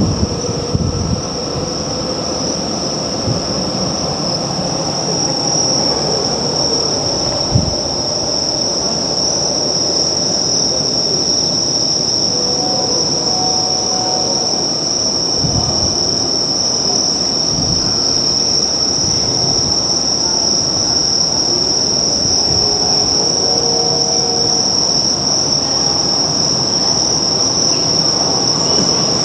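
Keio Line electric train running, a steady rumble with a continuous high-pitched tone held throughout.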